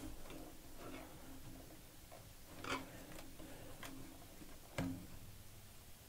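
Small clicks and taps of hard plastic and metal parts as a Lenovo IdeaCentre Q180 mini PC is handled and its parts are pressed together during reassembly. Two sharper clicks stand out, one near the middle and one about five seconds in.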